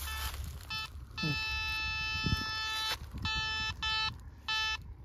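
Aziz K-37 metal detector sounding its electronic buzz tone. First come a few short beeps, then one long tone of nearly two seconds starting about a second in, then more short, evenly pitched beeps.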